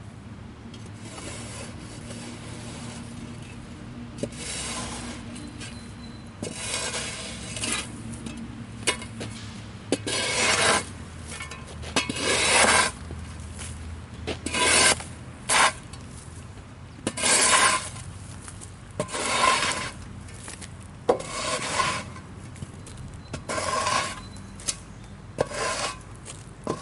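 Rake fitted with a plywood board scraping sawdust off a sawmill bed, in a series of separate strokes every one to two seconds, starting about four seconds in.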